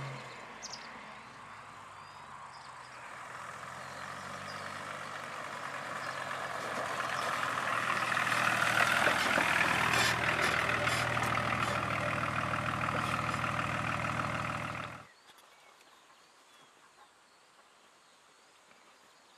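BMW 525tds's 2.5-litre turbodiesel straight-six heard through a straight-piped exhaust. The sound fades as the car drives away, then grows steadily louder as it comes back and passes close by, loudest a little before the middle. It cuts off suddenly about three-quarters of the way through, leaving a faint outdoor background.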